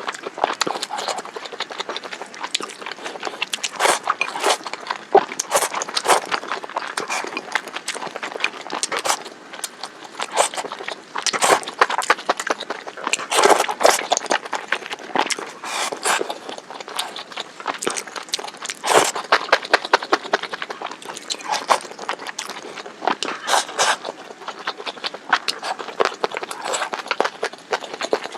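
Close-miked eating of spicy stir-fried hot pot (mala xiang guo): chewing and crunching, a dense, irregular run of short crisp crunches and mouth clicks.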